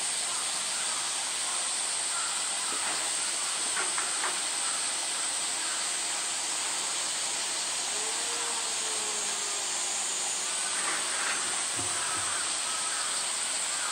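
Steady high-pitched hiss of a summer cicada chorus.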